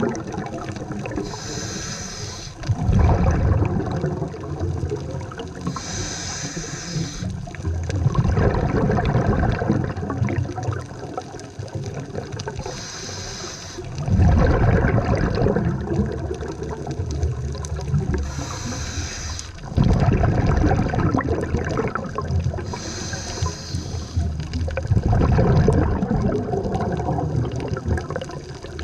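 Scuba diver breathing through a regulator underwater: a short hissing inhale is followed each time by a loud, low bubbling rush of exhaled air, in a cycle repeating about every five or six seconds.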